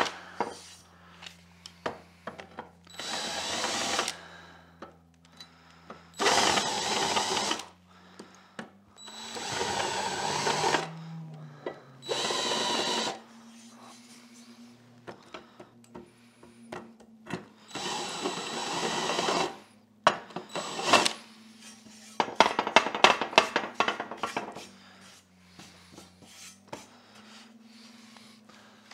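Cordless drill boring 3/8-inch holes through aluminum angle stock, run in about six short bursts of a second or two with pauses between. Near the middle comes a flurry of sharp metallic clicks and rattles, the loudest sounds.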